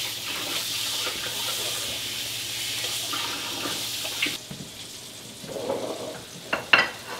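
Kitchen faucet running into the sink with a steady hiss, cutting off suddenly about four seconds in. A few sharp clicks or clinks follow near the end.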